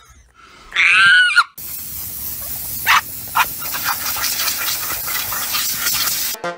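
A cat meows once, loud and short with a bending pitch, about a second in. Then comes a steady loud rush of wind from air blowing past the open window of a moving car into a bulldog's face.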